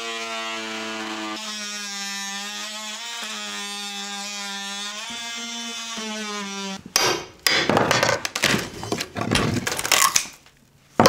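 Oscillating multi-tool running steadily as it cuts through a rotted wooden wall bottom plate, its pitch sagging briefly a few times as the blade bites. About seven seconds in the tool stops and is followed by a few seconds of cracking, snapping and scraping as the rotted wood is broken and pulled out by hand.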